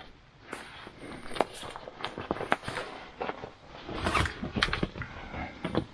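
Gear being handled on the seat of a side-by-side utility vehicle: a run of irregular clicks, knocks and rattles, loudest around four seconds in.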